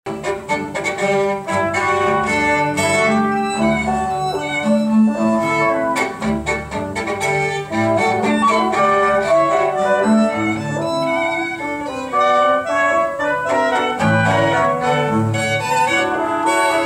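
String music with violin and cello prominent, played back over Sonist Concerto 4 loudspeakers driven by deHavilland 50A tube monoblock amplifiers.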